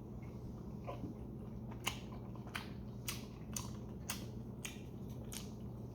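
A person chewing a dumpling with the mouth closed: faint, irregular wet clicks about every half second over a low steady hum.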